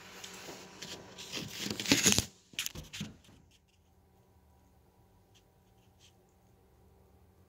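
Rustling and scraping handling noise as the phone filming is moved and rubbed against cloth, for about three seconds, then near silence with a few faint ticks.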